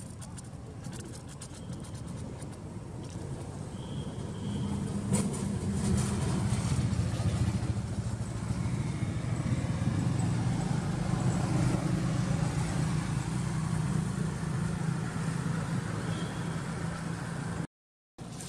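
A motor vehicle's engine running, a steady low hum that swells about four seconds in and holds, then breaks off for a moment near the end.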